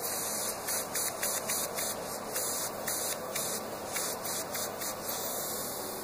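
Steady hissing noise with no clear tone, with faint quick crackles or rustles in the first few seconds.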